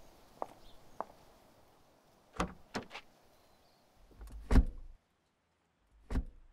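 Sound effect of getting into a car: a few light footsteps, then latch clicks as a car door is opened, and two door thuds. The louder thud comes about four and a half seconds in and the other near the end.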